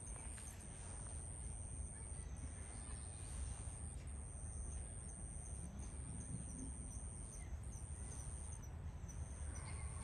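Insects trilling steadily at a very high pitch, broken by short gaps, with a row of faint high chirps just below and a constant low rumble underneath.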